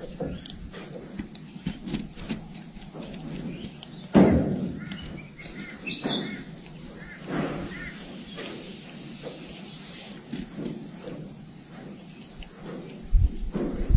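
A few short, high bird chirps with rising pitch, about five to six and a half seconds in, just after a sudden loud thump; more knocks come near the end.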